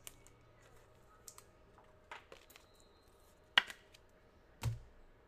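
Scattered light clicks and taps of typing on a computer keyboard, with a sharper click about three and a half seconds in and a dull thump about a second later.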